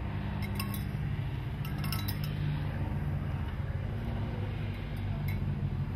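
Steady low engine drone, with a few light clinks over it.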